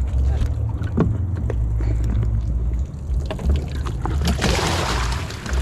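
Water pouring and splashing from about four seconds in as fish are dumped in with their water, over a low steady rumble.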